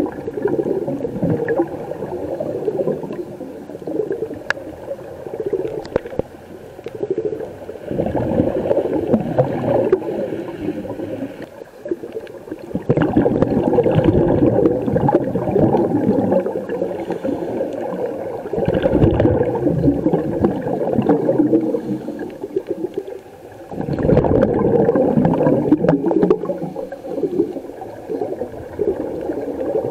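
Underwater camera sound of scuba diving: a muffled rush and gurgle of exhaled regulator bubbles, coming in surges a few seconds apart.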